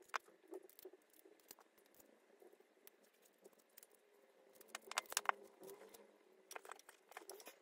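Faint small metallic clicks and scraping from a bearing-removal tool being worked in the crankcase of a small two-stroke nitro engine to pull out the front bearing, with a cluster of quick clicks about five seconds in and more near the end.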